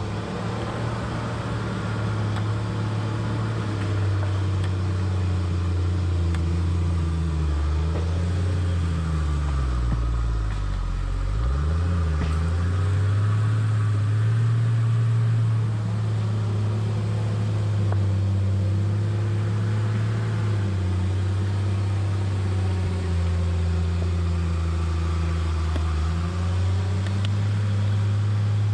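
Logging machine's engine running under load. Its pitch drops sharply about ten seconds in as it bogs down, then climbs back, with smaller dips and rises later.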